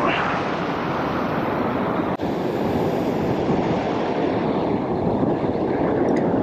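Ocean surf washing over a rock ledge, with wind buffeting the microphone: a loud, steady rushing rumble.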